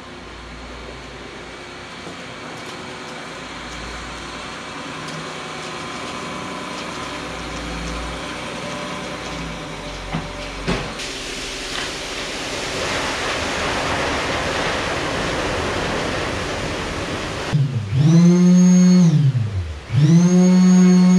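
Diesel engine of a concrete mixer truck running and growing louder as the truck manoeuvres into position. Near the end a handheld power tool is started twice: each time it spins up quickly, runs steady for a moment, then winds down. The tool is the loudest sound.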